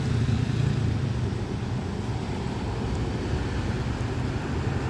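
Large bus's diesel engine rumbling as it drives past, with road noise; loudest in the first second, then easing.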